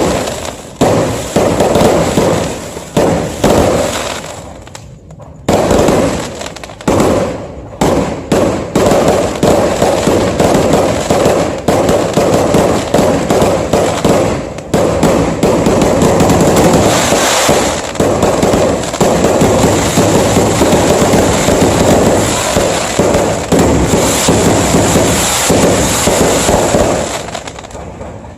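Many fireworks going off at once: a dense run of overlapping bangs and crackles. It thins to a few scattered bangs about four seconds in, then builds to an almost unbroken barrage and dies down near the end.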